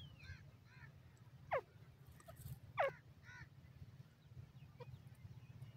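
Grey francolin calling: two sharp notes that fall steeply in pitch, about a second and a quarter apart, with fainter short chirps between and after them, over a low steady rumble.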